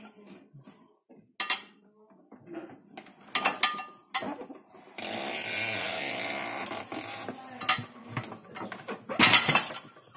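Crockery and cutlery in a loaded Neff dishwasher's racks clinking as the racks are handled, with several sharp knocks. A steady rushing sound lasts about three seconds in the middle.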